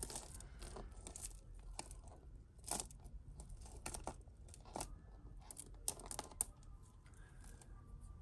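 Costume jewellery being untangled by hand: quiet, irregular small clicks and light rattles of metal chain and beads knocking together, with a few sharper clicks.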